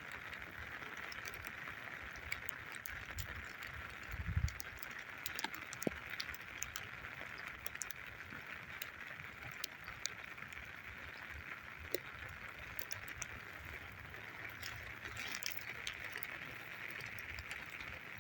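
Forest ambience after rain: a steady high-pitched hiss with scattered small clicks and ticks, and a brief low rumble of thumps about four seconds in.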